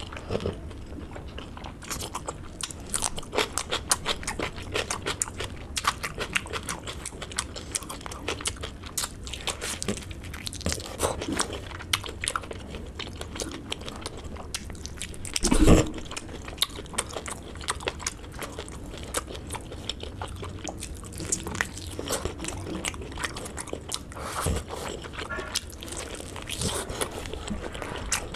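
Close-miked mouth sounds of a person eating pork curry and rice by hand: many sharp wet smacks, clicks and crunches of chewing. One louder burst comes about halfway through.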